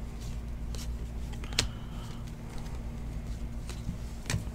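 Glossy trading cards being flipped through by hand: light rustles and clicks of card stock, the sharpest about one and a half seconds in and another near the end, over a steady low hum.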